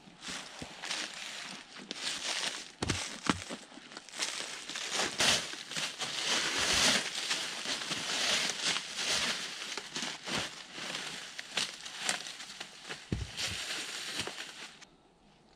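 Dry fallen leaves crunching and rustling as a person crouches and shifts about in them and handles gear, with a few dull thumps; it stops about a second before the end.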